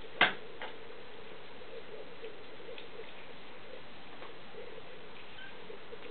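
A kitten eating from a plastic bowl: soft irregular small clicks and ticks, with one sharp knock about a quarter second in and a fainter one just after.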